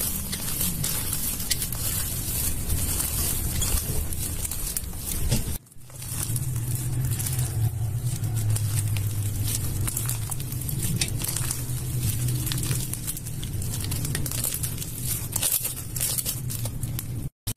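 Slime being handled, giving many small crackles and pops over a steady low hum, with a brief cut to silence a little under six seconds in.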